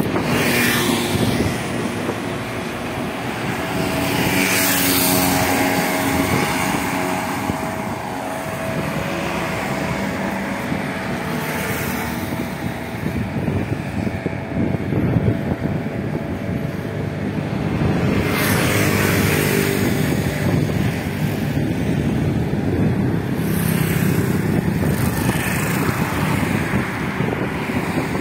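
Street traffic heard from a moving rider: small motorbike and car engines running close by over a steady rush of road noise, with no single event standing out.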